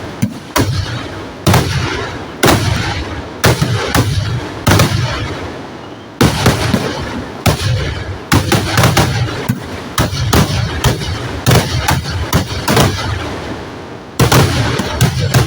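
Fireworks going off: a long run of loud bangs, some single and some in rapid clusters, each trailing a low echoing rumble, with brief lulls around the middle and near the end.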